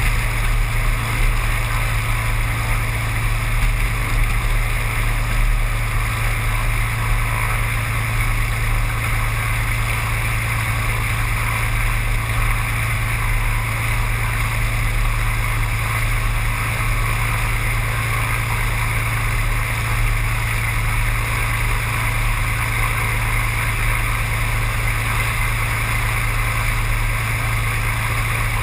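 Seaplane's propeller engine droning steadily: a constant low hum with a hiss above it, no change in pitch or level.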